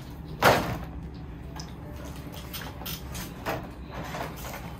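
Packaging of a trading-card collection box being handled: one brief, loud scraping rustle about half a second in, then faint scattered rustles and small clicks.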